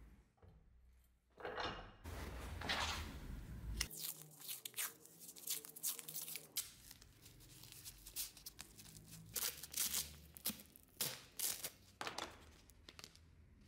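Paper masking tape peeled off and torn into strips, with a run of sharp crackles and crinkling as the tape is handled.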